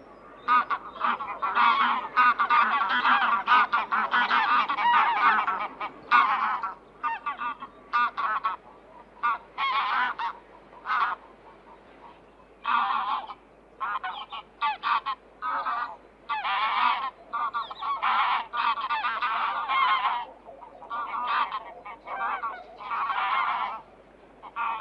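A flock of geese honking, many calls overlapping. The calls are densest for the first six seconds, then come in short separate bouts.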